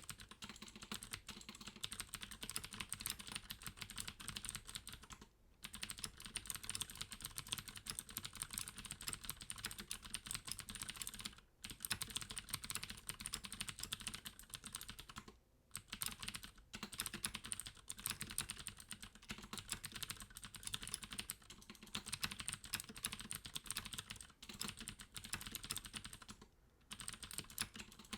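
Deck Hassium Pro mechanical keyboard with clicky Cherry MX Blue switches, fitted with Deck's own sound-dampening foam, typed on fast and continuously as a stream of crisp keystroke clicks. The typing pauses briefly four times.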